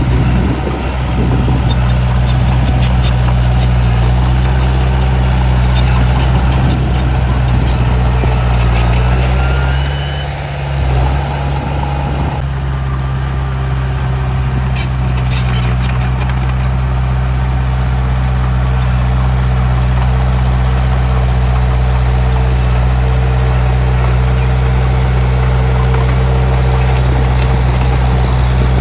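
Heavy diesel engine of earthmoving machinery running steadily at low revs. Its note dips and shifts briefly about ten seconds in, with a few light clicks over it.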